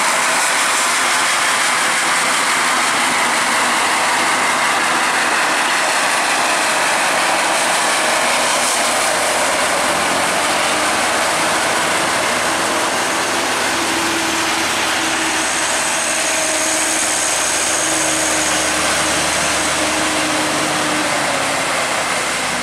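Heavy diesel trucks grinding up a steep wet hill road under a steady, loud hiss. About ten seconds in, a deeper engine drone with a low steady hum rises as a second truck comes up close behind the first.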